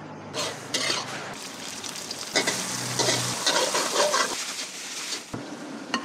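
Pad thai noodles stir-frying in a hot wok: a steady sizzle, with the metal ladle and spatula scraping and clinking against the wok. The sizzle stops about a second before the end.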